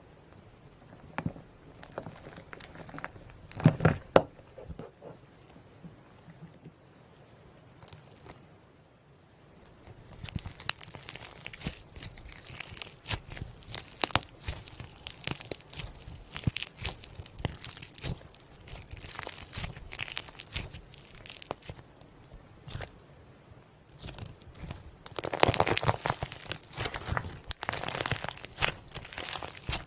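Slime being squeezed and poked, giving runs of small crackles and pops. Sparse and faint at first with a few louder clicks, it turns dense from about ten seconds in and is loudest near the end.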